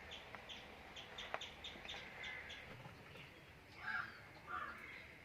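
Birds calling: a run of quick, high chirps repeating about four times a second, then two louder, harsher calls near the end.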